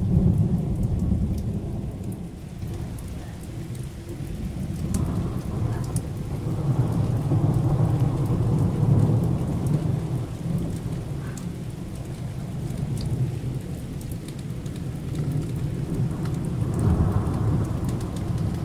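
Rolling thunder rumbling during a rainstorm. It swells at the start, again in the middle and once more near the end, over rain falling with scattered drips and patters.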